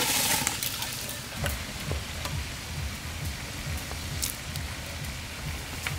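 Pieces of boal (wallago) fish frying in oil in an iron karahi over a wood fire: a steady sizzle with crackles, and a few sharp clicks of a metal spatula. It opens with the brief rush of rice poured from a bowl into a pot.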